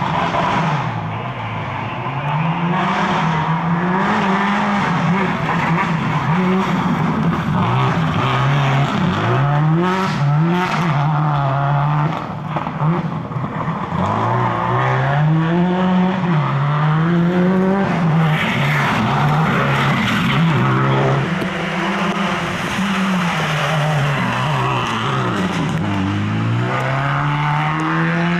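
Subaru WRX (VA) rally car's turbocharged flat-four engine driven hard on a special stage, its pitch climbing and dropping back again and again through gear changes, easing off lower twice, around the middle and near the end.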